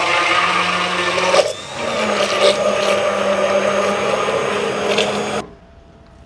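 Immersion blender running in a steel saucepan, blending the egg mixture for a caramel pudding while milk is poured in. It runs for about a second and a half, stops briefly, starts again at a slightly higher pitch and cuts off about five seconds in.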